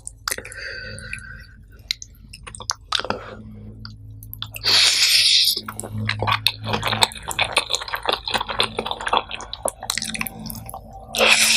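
Close-miked wet chewing and mouth smacking of a person eating nasi pecel, with many small sticky clicks. Two brief, louder hissing bursts come about five seconds in and near the end.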